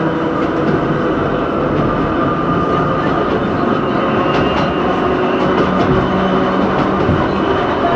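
Hakone Tozan Railway Moha 1 electric railcar running, heard from its cab: the steady hum of its nose-suspended traction motors and gearing over the rumble of steel wheels on rail, with a few faint clicks about halfway through.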